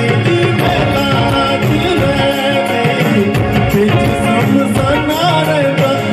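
Live band music with male voices singing: drums, with a heavy low beat coming in at the start, under held keyboard-like tones.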